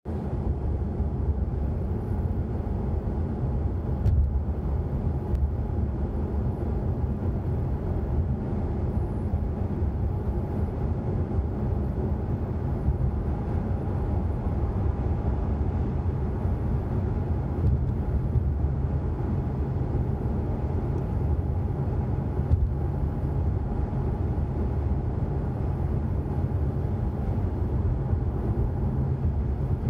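Steady low drone of road and engine noise heard inside a car cruising at speed on a dual carriageway.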